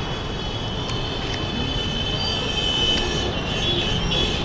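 Busy street ambience: a steady hum of traffic and crowd chatter, with a thin high-pitched whine running through it.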